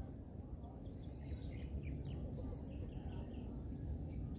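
Rural outdoor ambience: a steady, high insect drone, with a few quick bird chirps around the middle, over a low rumble.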